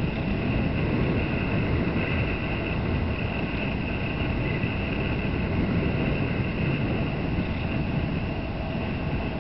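Steady wind noise rumbling on the microphone of a camera carried on a moving bicycle.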